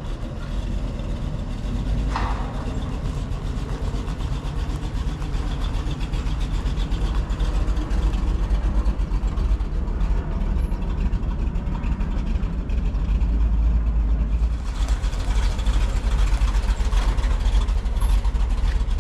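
An old Willys truck's engine running with a steady low rumble. There is a brief whine about two seconds in, and a louder rushing noise joins about fifteen seconds in.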